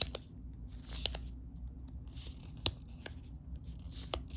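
Small board-game cards being handled and sorted by hand: cards sliding and rubbing against each other, with a few sharp clicks as they snap apart.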